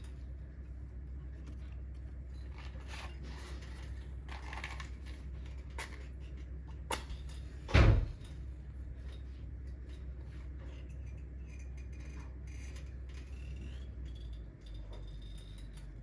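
Scattered clicks and one loud knock about eight seconds in, from handling at a wood-burning fireplace, over a steady low hum.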